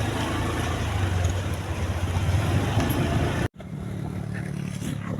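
Motor vehicle engine running steadily with road noise. It cuts off abruptly about three and a half seconds in, then a quieter, higher engine hum continues.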